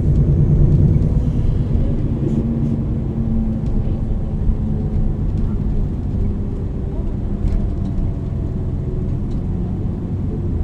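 MAN NL 323 city bus's diesel engine and ZF EcoLife automatic gearbox running while the bus is under way, its engine note loudest at the start and easing off slightly.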